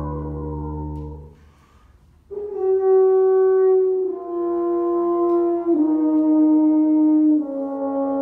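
Solo tuba in an improvisation: a low held note with rich overtones dies away about a second in. After a short pause comes a slow line of four long held notes in the upper register, each stepping a little lower in pitch.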